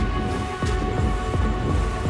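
Background music: held steady tones over a deep, repeating low beat.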